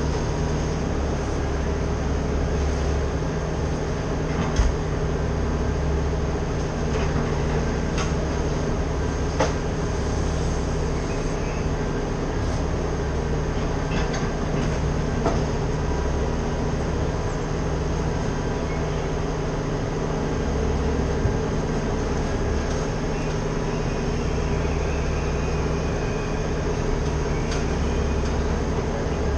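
Engine of heavy tree-service equipment running steadily at a constant speed, with a few faint clicks and knocks over it.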